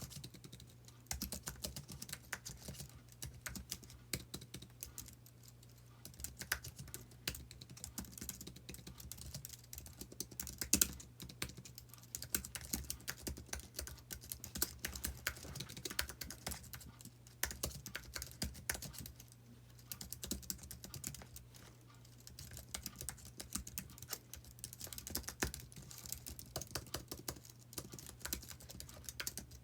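Typing on an Apple Magic Keyboard: quick, light scissor-switch key clicks in continuous runs with short pauses, and one noticeably louder keystroke about eleven seconds in. A faint steady low hum runs underneath.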